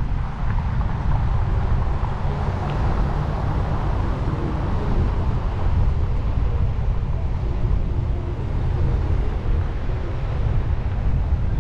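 A car driving, heard from a microphone on its roof: a steady low rumble of wind on the microphone mixed with road and tyre noise.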